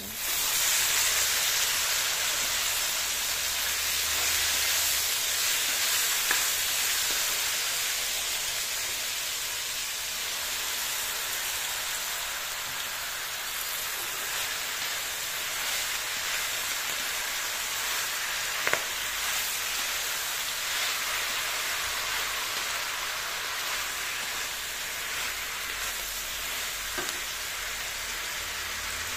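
Wet blanched vegetables hitting hot oil and garlic in a carbon-steel wok, sizzling loudly at once and then settling into a steady frying hiss as they are stir-fried. A few sharp knocks of the spatula on the wok.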